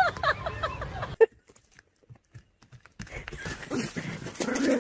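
A few short, high, wavering cries, then about two seconds of near silence. After that comes a steady outdoor noise, with a dog whining near the end.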